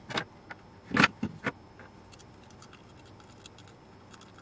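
Handling noise from a small electronics board assembly and its housing being taken apart by hand: a few sharp clicks and knocks in the first second and a half, the loudest about a second in, then faint light ticks.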